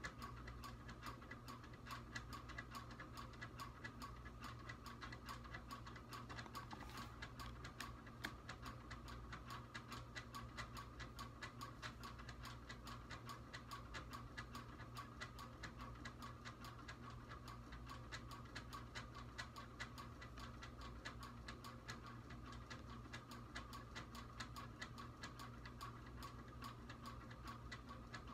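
Faint, steady ticking, about three ticks a second, over a low steady hum.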